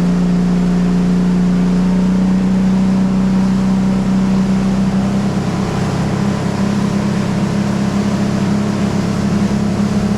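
Boat motor running steadily under way, a loud even drone; about halfway through its pitch rises a little and the sound turns rougher as it speeds up slightly.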